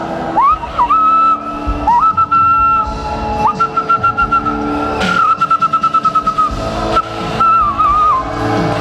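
Shofars (ram's horns) being blown. Each blast sweeps up to a high held note, the horns sometimes overlapping, with a fast run of short staccato pulses about five seconds in. A sustained keyboard pad plays underneath.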